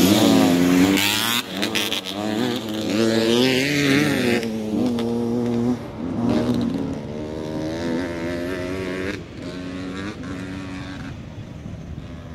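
Trail motorcycle engines revving up and down as the bikes ride the dirt track, growing fainter over the last few seconds.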